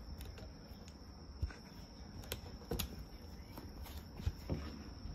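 Irregular taps, thumps and claw scratches as a kitten clambers and paws at the cloth-covered edge of a cardboard box, over a steady high-pitched whine.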